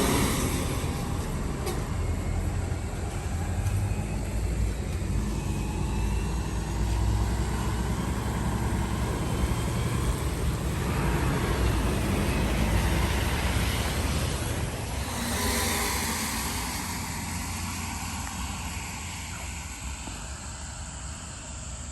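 A heavy vehicle running with a steady low rumble, loudest at the start and easing off toward the end, with a short burst of hiss about fifteen seconds in.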